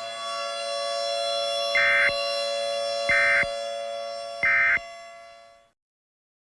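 Three short, loud digital data bursts about a second apart: the EAS SAME end-of-message (EOM) bursts that close the alert. They sound over a steady siren-like drone that fades out after the third burst.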